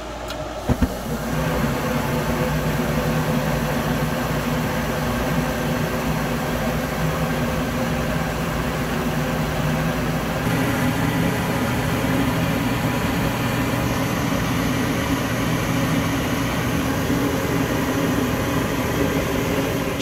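Goodman GKS9 high-efficiency gas furnace starting up: the draft inducer motor runs with a steady hum, with a couple of sharp clicks a little under a second in. From about ten seconds in the sound grows fuller as the burners light.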